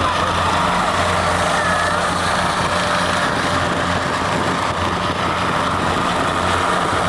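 Aircraft engines running steadily: a continuous whine over a low hum.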